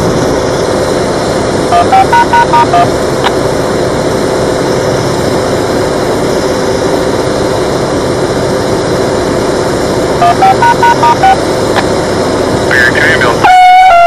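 A Federal Signal EOWS 612 electronic speaker-array siren starts its steady alert tone about a second and a half before the end, one loud held pitch. Before that there is steady background noise and two short runs of stepped electronic notes, one near the start and one about ten seconds in.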